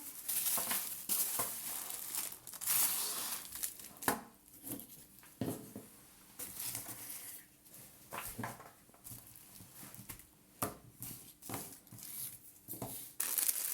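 Packaging crinkling and tearing as a box of consumer fireworks is unpacked, in irregular rustling bursts with a few sharp knocks.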